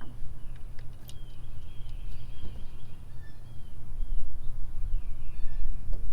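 Birds chirping repeatedly over a steady low rumble, with a few light metallic clicks.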